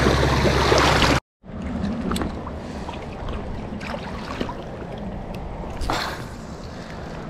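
River water trickling and sloshing around a kayak, with a few light knocks. A louder rush cuts off abruptly about a second in, and the water sound resumes quieter.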